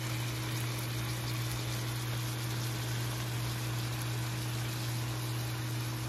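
Honey garlic sauce simmering around shrimp, salmon and broccoli in a frying pan, a steady bubbling over a constant low hum.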